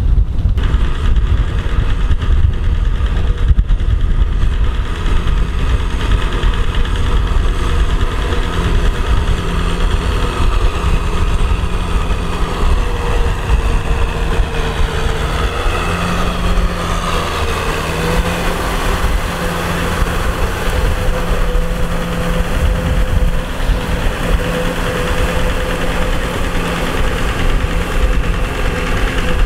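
Tractor diesel engine running steadily under load while it pulls a puddling rotavator through deep paddy mud. The engine note wavers briefly about halfway through.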